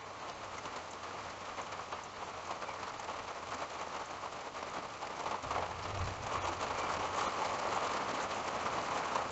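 Steady rain falling, a dense patter of drops that grows a little heavier in the second half. A brief low rumble about six seconds in.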